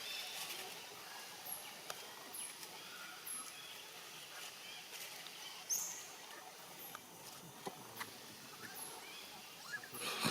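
Outdoor ambience with short, very high chirps repeating about once a second, one louder high call about halfway through, and scattered light clicks.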